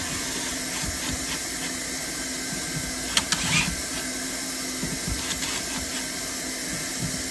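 Hand-held hot-air plastic welder blowing steadily with a constant hum while seaming PVC membrane, with a few sharp clicks and taps about three seconds in.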